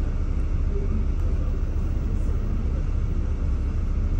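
Steady low rumble of a double-decker bus's engine and body, heard from inside the upper deck while the bus edges forward in slow traffic.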